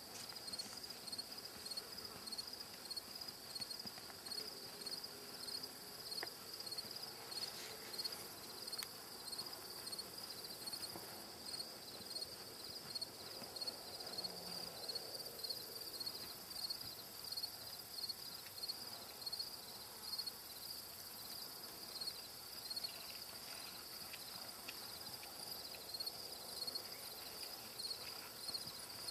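Insects, cricket-like, chirping in a steady run of high, evenly repeating pulses.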